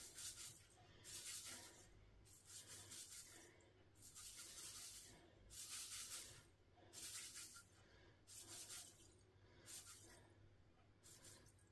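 Granulated beet sugar poured from a paper bag into a Thermomix's stainless-steel mixing bowl, trickling in a series of faint, short hissing spurts about a second apart.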